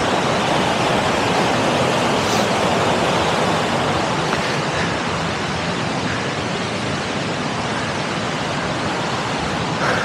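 Fast, turbulent mountain river rushing over rocks: a steady, even wash of water noise.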